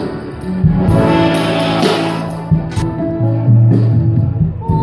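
Live band playing an instrumental passage over a PA, with held bass notes, chords and drums and cymbals; no singing.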